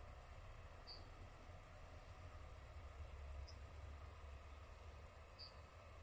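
Faint field ambience of crickets: a steady, very high-pitched trill of rapid pulses, with three short high chirps about two seconds apart over a low rumble.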